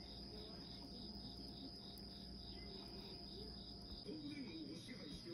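Insects chirping: a steady high trill with a regular pulsing chirp a few times a second. A faint low murmur joins about four seconds in.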